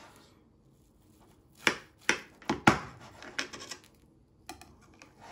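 A knife cutting a baked cottage-cheese casserole on a plate, the blade knocking against the plate in four sharp clicks between about one and a half and three seconds in, with lighter taps after.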